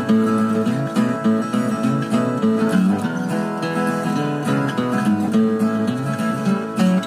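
Background music led by an acoustic guitar, playing steadily.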